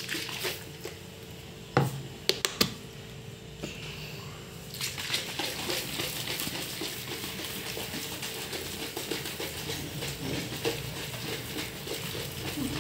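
A few sharp knocks in the first three seconds. Then, from about five seconds in, steady sloshing and rattling of lemon water with sugar in a lidded plastic container being shaken hard to dissolve the sugar.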